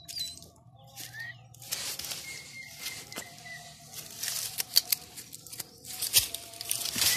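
Pointer dog scrabbling at a burrow entrance, its paws scratching and crackling through dry soil and fallen leaves in quick irregular runs that grow busier in the second half.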